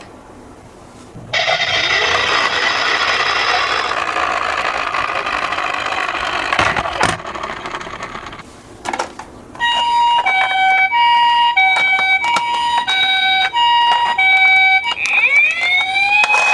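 Toy ambulance's electronic two-tone siren going high-low, high-low, about one pair a second, after several seconds of noisy whirring. Near the end it changes to a rising wail.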